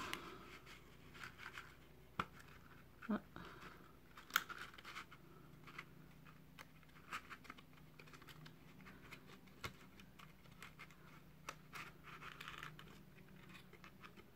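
Faint scraping and rustling of cardstock as a decorated paper tag is handled and slid down into its small paper box, with a few sharper clicks in the first half.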